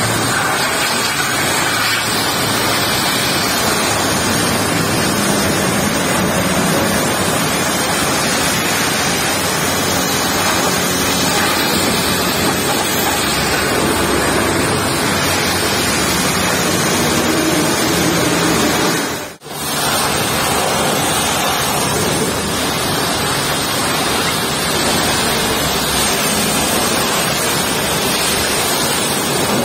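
High-pressure washer jets spraying water against a semi-trailer's body: a steady rush of spray that breaks off for a moment about two-thirds of the way through.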